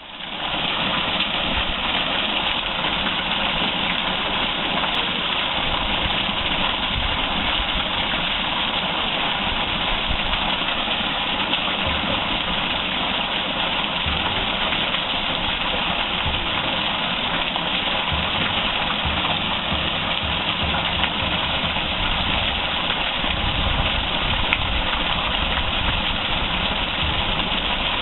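Water rushing steadily down a small waterfall and stream, an even, unbroken noise.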